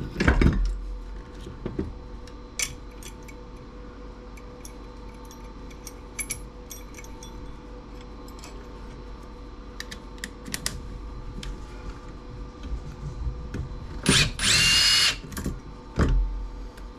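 Scattered clicks and taps of parts being handled, then a power drill or driver running in one loud burst of about a second, roughly fourteen seconds in.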